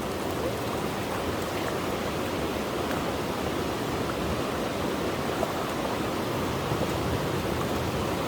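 Fast-flowing mountain river rushing steadily, its strong current giving an even, unbroken water noise.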